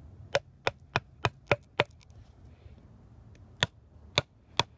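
A wooden baton stick strikes the spine of a Mora Bushcraft Black knife, driving the blade through a small animal's pelvic bone. There are six sharp knocks about three a second, a pause, then three more near the end.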